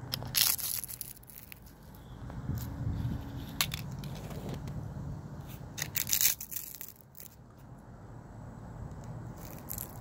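Dry, curled fallen leaves crunching and crackling as a child's sandal sole presses them flat against asphalt. The loudest crunches come shortly after the start and about six seconds in, with smaller crackles between.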